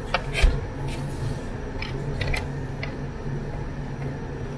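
A disassembled 18 V cordless-tool battery pack being handled: a thump about half a second in, then a few light clicks. A steady low hum runs underneath.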